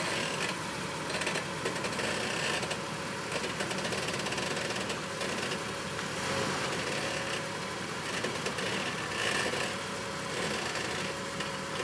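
Jeep Wrangler TJ engine idling steadily, with no revving.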